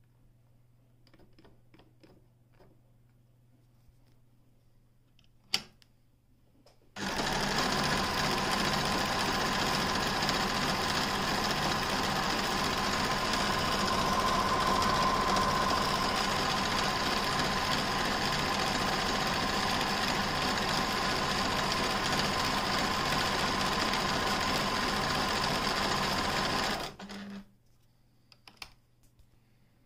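Pfaff Creative 1469 computerized sewing machine stitching at a steady speed for about twenty seconds, starting about seven seconds in and stopping abruptly near the end. Before it starts there are a few faint clicks and one sharp click.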